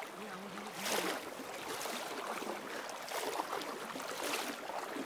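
Steady rush of river current flowing over a shallow run, with a faint voice briefly near the start.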